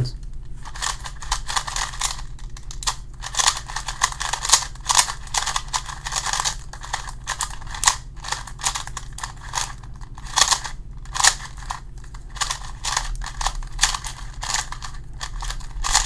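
A GAN-made Rubik's Speed Cube 2x2 being turned quickly by hand: a rapid, uneven run of soft plastic clicks and scrapes as its layers turn. It is a very quiet, smooth-turning cube.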